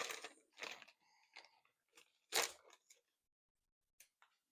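Plastic packaging from a rock light kit being handled: a few short rustles, the loudest about two and a half seconds in, then a couple of small clicks near the end.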